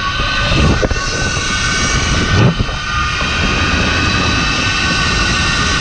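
Zip line trolley pulleys running fast along the steel cable with a steady high whine, over heavy wind buffeting on the microphone that gusts louder a couple of times.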